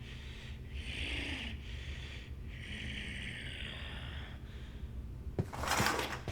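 Raspy, snoring-like breathing in several long noisy breaths over a low hum, with a louder burst and a few sharp clicks near the end.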